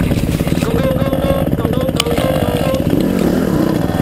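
Honda CRF150R dirt bike's four-stroke single-cylinder engine running while riding, the revs rising and easing twice, with a sharp click about two seconds in.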